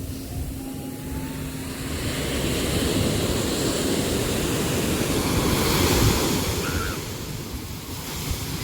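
Sea waves washing in: the noise of surf builds to a peak about six seconds in and then subsides.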